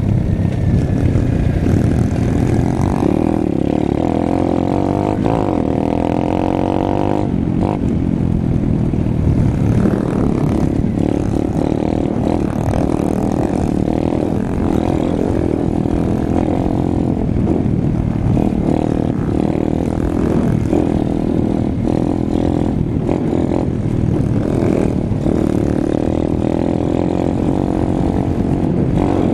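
Apollo RFZ pit bike's single-cylinder four-stroke engine running under way, heard close from the rider's helmet. Its note rises and falls with the throttle, most clearly in the first several seconds.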